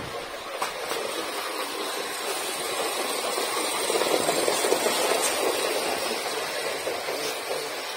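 O gauge model of an A4 Pacific steam locomotive running round a tight oval of track, its electric motor running and its wheels rumbling on the rails. The sound grows louder as the train passes close, peaking about four to five seconds in, then eases off.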